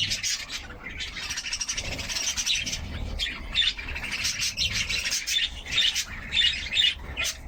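Many birds chirping and squawking together: a dense, continuous twittering with no single call standing out.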